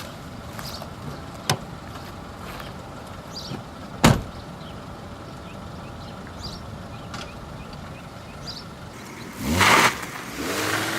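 A single sharp bang about four seconds in, then near the end a vehicle engine swells up and its pitch rises as it accelerates.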